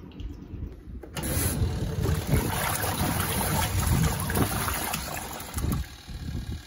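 Washing machine agitating a load of clothes in soapy water: motor drone and churning, sloshing water, starting suddenly about a second in.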